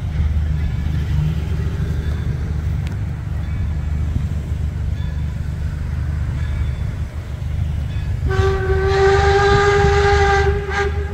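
A low steady rumble for about eight seconds, then the steam whistle of Baldwin Locomotive Works No. 26, an 0-6-0 switcher steam locomotive, blows one long blast of about three seconds: a chord of several steady tones over a hiss of steam.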